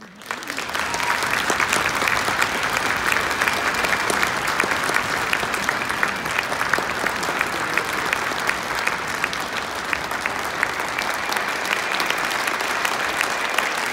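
A large audience applauding steadily, starting about half a second in.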